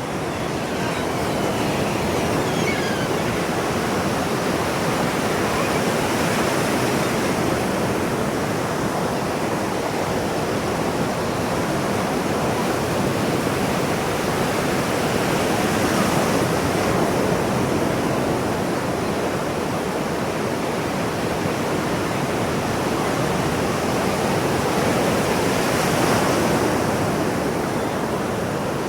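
Ocean waves washing onto the shore: a steady rush of surf that swells roughly every ten seconds as each wave breaks and runs up.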